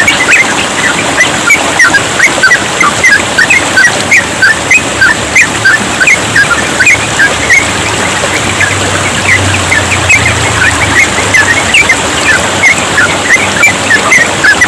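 Yellow-vented bulbul (trucukan) singing a quick, continuous string of short chirping notes, several a second, over the steady hiss of trickling water.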